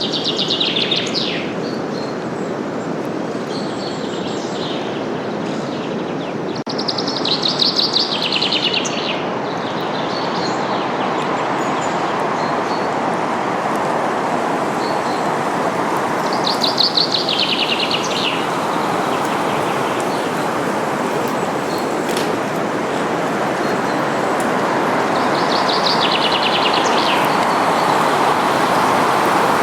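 A songbird sings a fast trill that falls in pitch, four times about nine seconds apart, over a steady rush of wind through forest leaves that swells slightly near the end.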